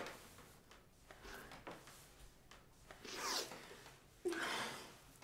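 Faint rustling and rubbing of clothing as two people hug, with two short swishes about three and four seconds in.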